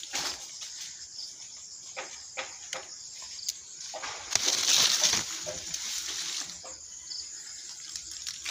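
A steady high-pitched insect sound with scattered clicks and leaf rustling as a hand works among the branches. A louder rustle begins about four seconds in and lasts about two seconds.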